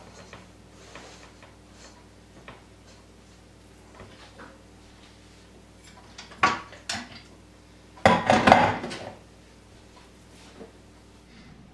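Kitchen clatter: dishes and utensils being handled, with scattered light knocks and two louder bursts of clattering, a short one about six seconds in and a longer one about eight seconds in, over a faint steady hum.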